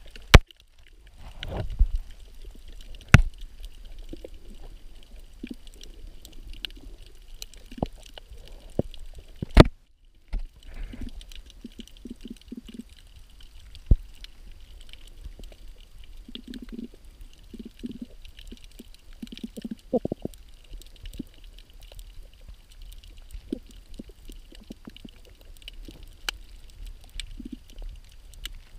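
Underwater ambience over a shallow coral reef: a muffled low rumble of moving water, with a handful of sharp clicks and short gurgling bursts scattered through it.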